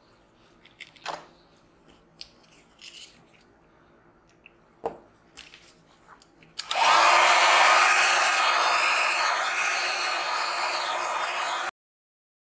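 A few light taps and handling knocks, then about six and a half seconds in a small handheld electric blower switches on and runs steadily, blowing air across a puddle of wet alcohol ink and gold pigment. It stops abruptly near the end.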